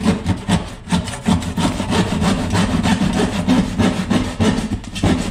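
Wood handsaw cutting through half-inch plywood flooring with steady back-and-forth strokes, about three a second, finishing a corner of a cut opening.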